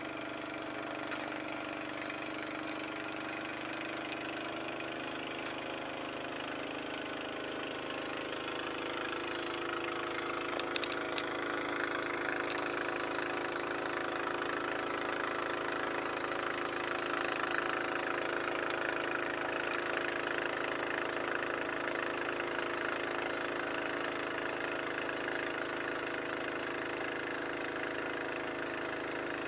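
A small engine running steadily, growing a little louder about a third of the way in, with a few sharp clicks around the same time.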